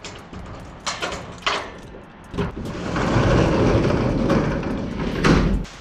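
A few metallic clicks of a padlock being unlocked, then a corrugated steel roll-up storage-unit door rattling loudly as it is raised for about three seconds, stopping suddenly near the end.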